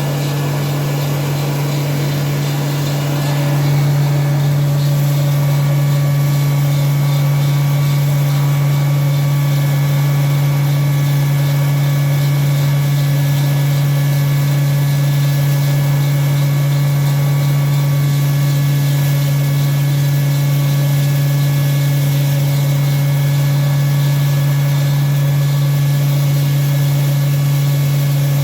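Disk mill for grinding coarse rice bran running steadily, with a strong continuous hum, growing slightly louder about three and a half seconds in.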